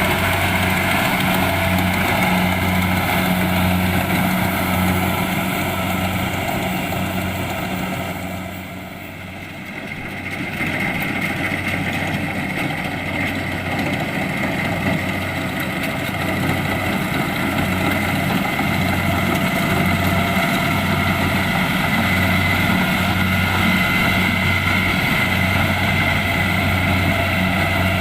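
Kubota DC-70 Plus rice combine harvester's diesel engine running steadily under working load. The sound dips for a couple of seconds about a third of the way in, then returns to full level.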